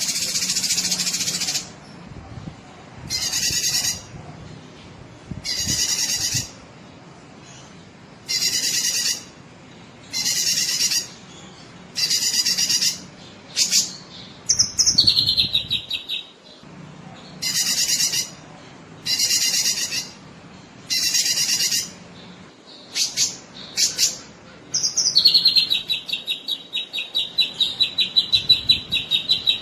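Cucak kinoi singing, a song recorded for training other songbirds: short, high, buzzy notes repeated every second and a half to two seconds, broken by rapid rattling trills, the longest near the end.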